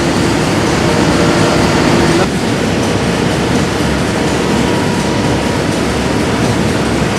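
Steady, loud industrial machinery noise with a heavy low rumble. A faint steady hum drops out about two seconds in.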